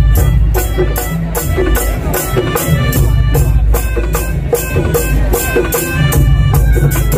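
Madurese daul (ul-daul) percussion ensemble playing loudly through its sound system: heavy drum bass under a melodic line, with a high rattle keeping an even beat of about three or four strokes a second.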